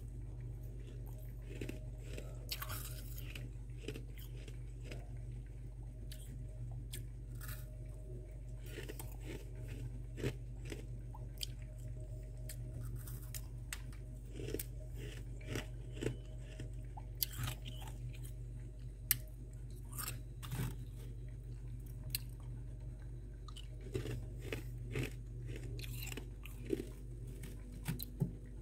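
Freezer frost being chewed, with sparse, crisp crunches that come more often near the end, over a steady low hum.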